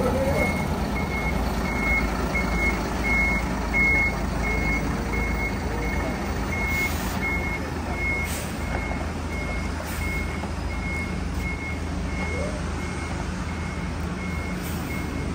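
A bus's reversing alarm beeping steadily at one high pitch, about two beeps a second, over the low running of the bus's diesel engine. The bus is a new coach on a Hino RM280 chassis.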